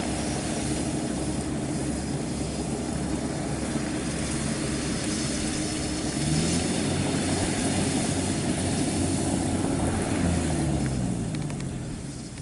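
Kubota combine harvester's diesel engine running steadily. About six seconds in its note rises and it grows louder; near the end the note falls and the sound fades away.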